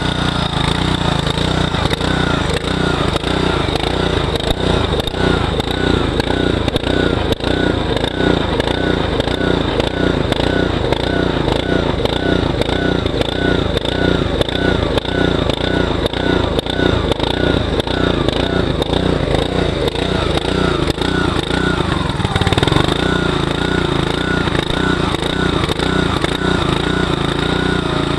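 Small single-cylinder gasoline engine on a hydraulic machine running steadily just after a cold start with the choke on, its hydraulic pump freshly refilled with automatic transmission fluid. The engine note shifts about 23 seconds in.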